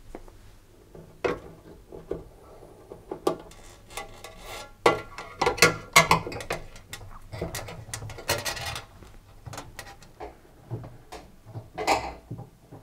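Irregular clicks, scrapes and rubbing as a coiled metal spring retaining band is stretched and worked round a washing machine's rubber door seal on the lip of the drum. The handling noise is busiest in the middle.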